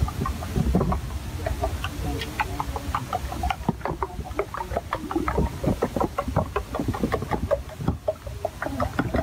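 Metal spoon clicking against a ceramic bowl as raw eggs are beaten, in quick, rapid strokes that pick up about three and a half seconds in.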